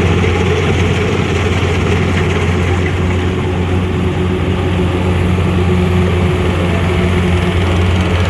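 Kubota DC105X combine rice harvester's diesel engine and machinery running at a steady pace: a constant low drone with a mechanical rumble over it.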